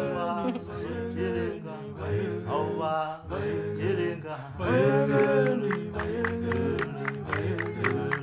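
Background music: a song with a singing voice over held instrumental chords, with a quick run of short plucked or percussive strokes near the end.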